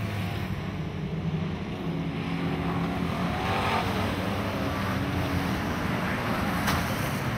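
Engines of several dirt-track stock cars racing together in one overlapping drone, with one sharp knock near the end.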